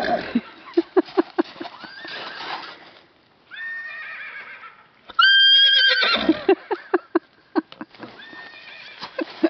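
Horse whinnying twice, a fainter call about three and a half seconds in and a loud one about five seconds in, with bursts of quick hoofbeats. This is a Gypsy Vanner horse calling and moving about, stirred up by a whinnying horse ringtone played on an iPhone, which he takes for another horse.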